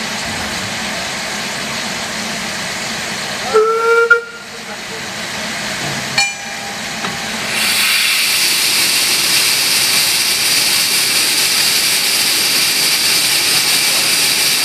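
Narrow-gauge steam locomotives standing with a steady hiss of steam. A short whistle blast about four seconds in, and a second, shorter whistle about two seconds later. Then a loud, steady rush of steam from the open cylinder drain cocks as the engines get under way.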